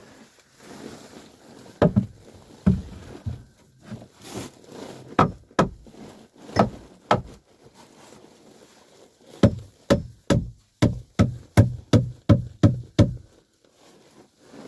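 Hammer striking lumber: a few separate blows, then from about nine and a half seconds in a quick run of about a dozen blows, about three a second. The hammer is knocking a freshly cut board into place against a floor joist.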